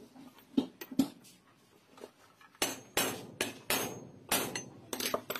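Metal engine parts struck with a hammer: a few light taps in the first second, then about eight sharper, louder blows with a short metallic ring after each.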